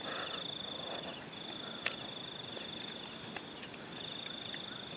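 Forest insects chirring: a steady high-pitched buzz that drops out briefly a couple of times, overlaid by a high chirp pulsing a few times a second.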